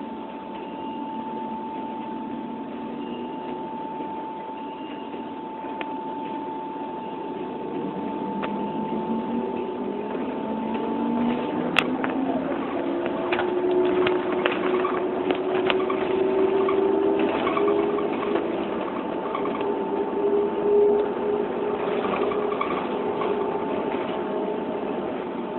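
A motor or engine running continuously, its pitch climbing slowly for several seconds midway through, over a steady high whine, with scattered clicks and knocks in the second half.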